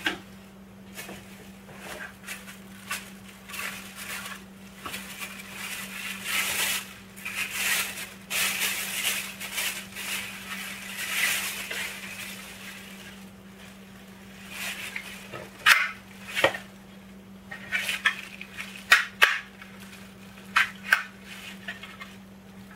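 Plastic bag and bubble wrap crinkling and rustling as packaging is pulled off a scale accessory. In the second half there are sharp clicks and knocks of a hard plastic part being handled.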